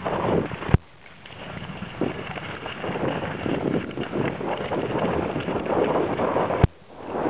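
Skis running and scraping over snow on a fast downhill, with wind rushing over the chest-mounted camera's microphone; the noise swells and fades. Two sharp clicks, about a second in and near the end.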